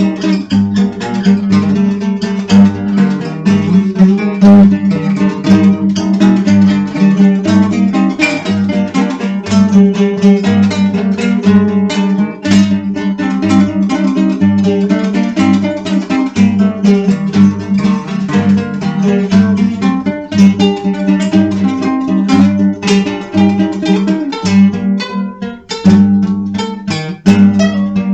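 Dark folk music: plucked acoustic guitar playing a steady stream of notes over a sustained low drone, with bass notes pulsing about once a second.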